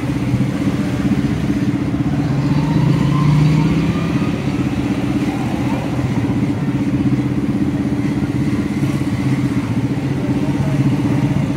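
A small engine running steadily with an even, pulsing hum, swelling briefly about three seconds in.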